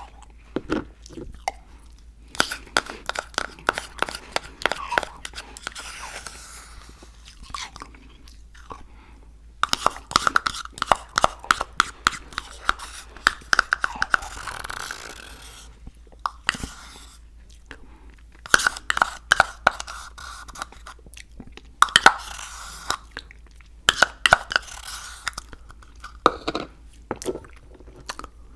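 Close-miked chewing and crunching of frozen Icee slush, crisp icy crackles coming in bursts of a few seconds with short pauses between.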